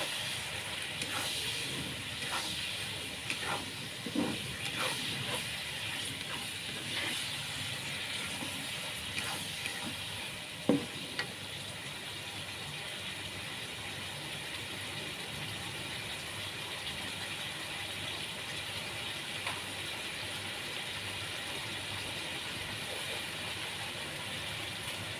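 Cauliflower and mushrooms in oyster sauce cooking in a pan with a steady hiss of sizzling and simmering. A utensil scrapes and knocks against the pan while stirring during the first ten seconds or so, with the sharpest knock about ten seconds in.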